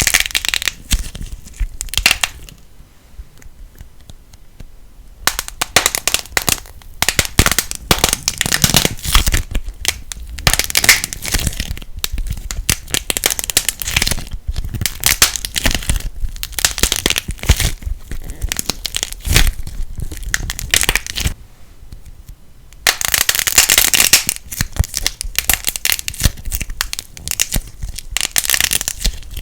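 Light plasticine being squeezed and kneaded by hand, giving a dense crackle of many small pops and clicks that comes in long bursts and pauses twice.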